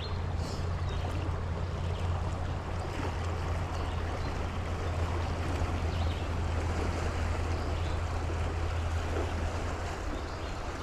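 Creek water rushing steadily, with a steady low hum under it that stops near the end.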